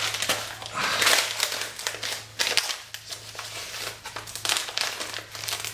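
Packing material crinkling and rustling in fits and starts as hands rummage through a shipping box of movies.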